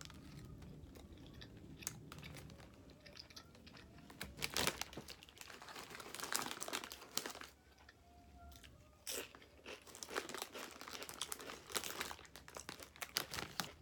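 Close-miked chewing and biting of a Subway BMT sandwich of Black Forest ham, salami and pepperoni, in irregular wet crunches and crackles.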